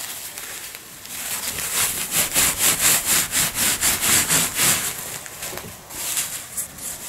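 A hand rubbing and scrunching a Lupilu size 3 disposable nappy, its plastic backing and padding rustling. The rustling comes in quick rhythmic strokes, about four a second, starting about a second in and easing off about five seconds in.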